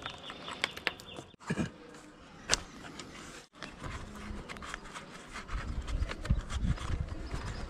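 Small clicks, taps and scrapes of hand tools and fingers working at copper AC refrigerant pipes and crumbling wall plaster, with a low rumble in the last couple of seconds.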